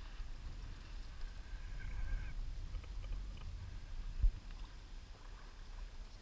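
Low, uneven rumble of wind and sea around an open fishing boat, with one sharp knock about four seconds in.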